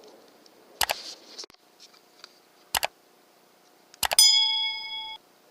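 Three sharp metallic clicks spread over a few seconds. The last one is followed by a bright metallic ring that fades out over about a second.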